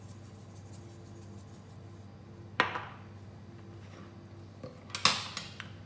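Salt shaker shaken over a bowl of eggs with faint ticking, then a sharp ringing clink about two and a half seconds in and a short clatter of kitchenware near the end.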